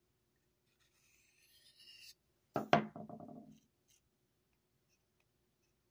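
A faint light scrape of a knife blade on a ceramic sharpening stone. About two and a half seconds in, a single knock as the stone is set down on a wooden table, dying away within a second.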